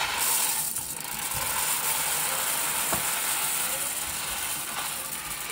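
Dry elbow macaroni pouring steadily out of a cardboard box into a pan of chili.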